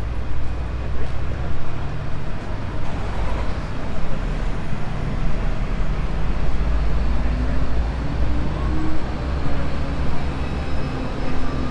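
Street traffic beside a row of double-decker buses: a steady low diesel engine rumble over general street noise, with a low engine hum coming in about two-thirds of the way through.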